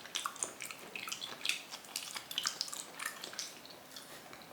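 Chewing, with irregular wet smacks and clicks of the mouth.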